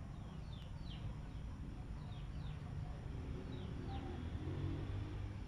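A small bird chirping: short, quick calls that fall in pitch, mostly in pairs about every second, over a steady low background rumble.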